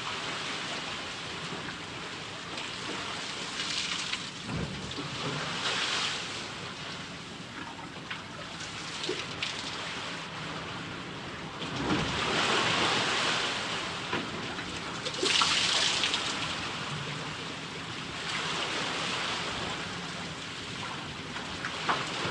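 Water sound effect: a steady rushing, rain-like hiss that swells and eases every few seconds, with a couple of brief low thuds.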